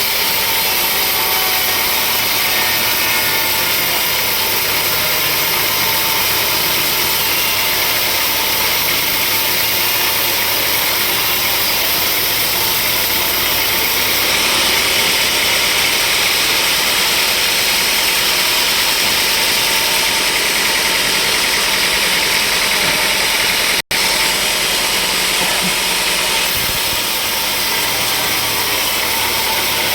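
Sawmill machinery running steadily, a loud even mechanical noise with no change in pace. It drops out for an instant about three quarters of the way through.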